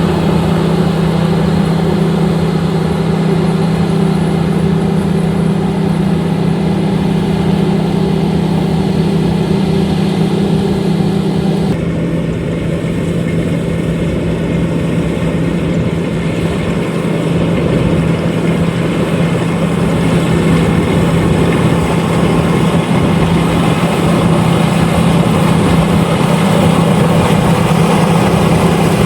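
LOVOL RG130EVO combine harvester running steadily while harvesting rice: a constant engine drone under a broad machinery hiss. About twelve seconds in, the sound changes abruptly, losing part of its steady tone and some of its high hiss.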